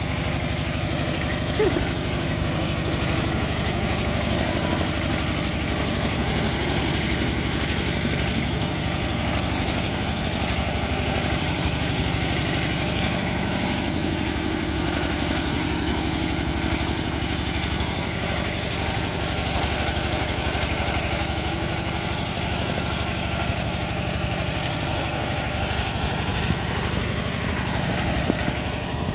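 Two-wheel walking tractor engine running steadily as it tows a trailer cart.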